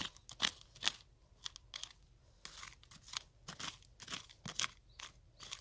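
Hand digging in dry, stony soil: about a dozen irregular crunching scrapes, roughly two a second, as the soil and stones are dug and raked out of the hole.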